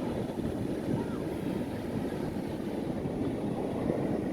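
Steady rush of ocean surf with wind buffeting the microphone, a dense low rumble with no distinct events.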